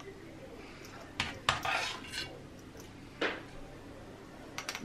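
A spoon knocking and scraping against a small glass jar as thick turmeric paste is spooned into it: a few sharp clinks about a second in, the loudest with a short scrape, and another knock about three seconds in.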